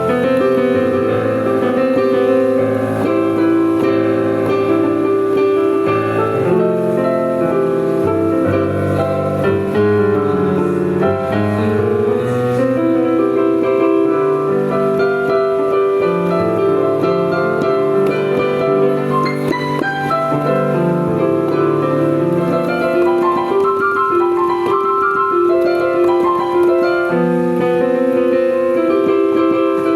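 Korg LP-380 digital piano playing a solo piece: sustained chords under a melody line.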